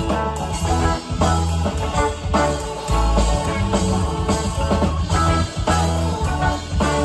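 Live rock band playing with electric guitars, bass, drums and keyboards: a steady groove with held bass notes under guitar lines.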